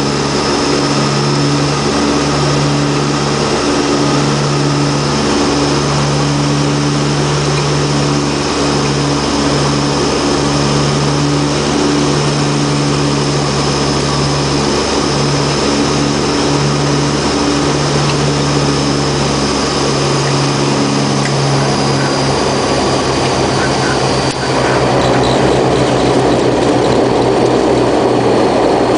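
The Antonov An-32's two Ivchenko AI-20 turboprop engines drone steadily on final approach, heard from the cockpit, with a high turbine whine and the two propellers beating against each other in a slow pulse. About 24 seconds in the aircraft touches down, and a louder rushing rumble of the wheels rolling on the dirt strip joins the engines.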